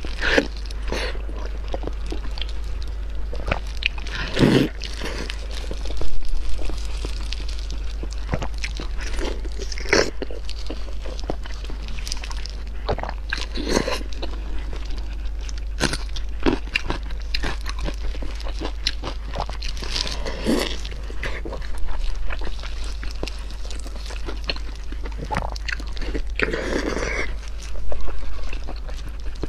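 Close-up biting and chewing of soft braised pork belly: irregular mouth clicks and smacks, with a few louder moments about four and six seconds in and again near the end. A steady low hum runs underneath.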